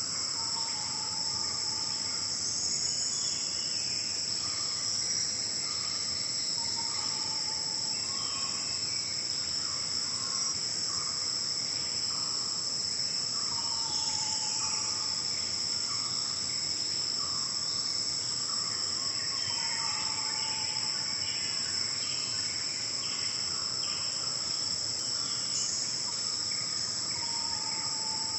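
Steady, high-pitched chorus of forest insects droning without a break. Over it, a bird repeats a short whistled call every six or so seconds, among scattered smaller bird chirps.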